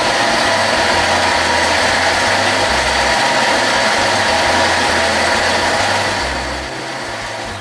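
Thermomix motor and blades running at speed 6 on an 8-second program, mixing flour and baking powder into muffin batter: a steady whir that drops away near the end as the program finishes.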